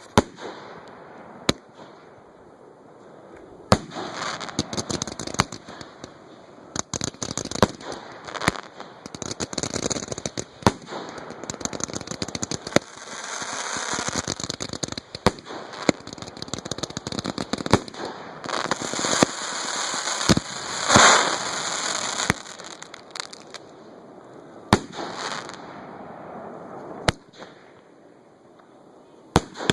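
Fireworks show being fired: single sharp booms every few seconds, and a dense stretch of crackling and popping through the middle that builds to its loudest about two-thirds of the way in, then thins back to single reports.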